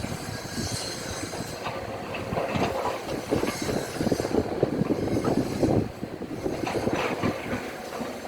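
Demolition noise: dense, continuous clattering and knocking of rubble and heavy machinery, with metallic squeals, busiest in the middle.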